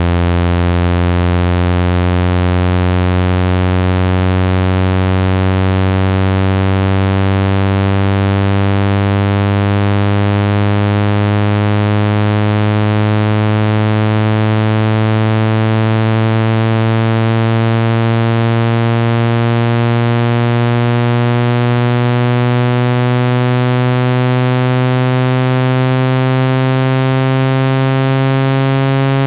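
Synthesized low buzzing tone, full of overtones, rising slowly and steadily in pitch. It is a speaker-cleaner sound, played to vibrate dust and water out of an iPhone speaker.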